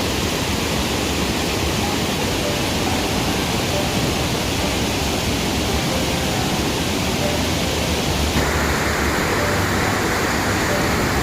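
Steady rush of a fast-flowing stream, its water running strong; the tone of the rush shifts a little about eight seconds in.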